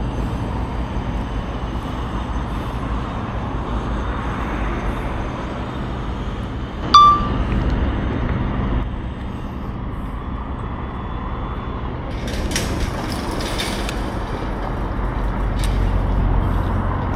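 Steady rumble of road traffic, with one short, loud beep about seven seconds in and a few sharp clinks near the end.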